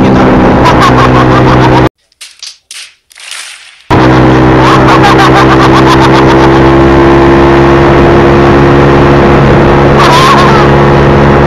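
Motorcycle engine running steadily at cruising speed, loud and close, mixed with rushing noise. About two seconds in, the sound cuts out for roughly two seconds, with only a few faint bursts, then the engine sound returns.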